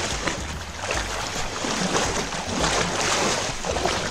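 Shallow stream water splashing and sloshing in irregular surges as a hand-held scoop net is set and worked in it, with a low rumble underneath.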